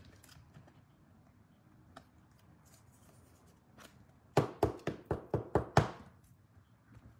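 A quick run of about six sharp plastic taps and knocks, packed into a second and a half just past the middle, as a trading card is worked into a rigid plastic top loader against the table. Before them there are only faint handling clicks.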